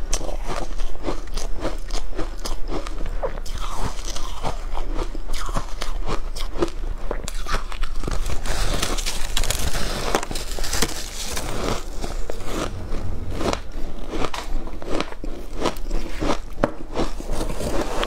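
Close-up crunching and chewing of shaved ice dusted with matcha powder: a steady run of sharp crunches, densest and loudest about eight to eleven seconds in as a large chunk is bitten off.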